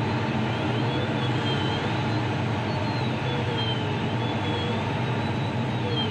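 Steady rush of airflow around the canopy of a Grob 102 Club III glider, heard inside the cockpit, with faint whistling tones that drift up and down in pitch.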